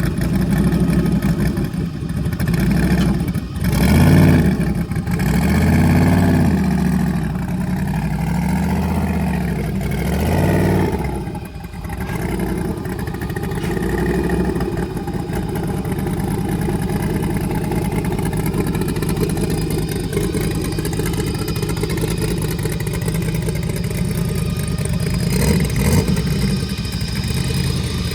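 Car engine running, its pitch rising and falling several times in the first ten seconds or so, then holding a steady drone.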